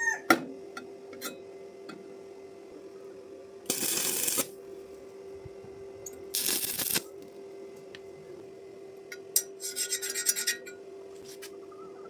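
Harsh rasping scrapes in three short bursts, the last a quick run of strokes, over a steady hum, with a few sharp clicks.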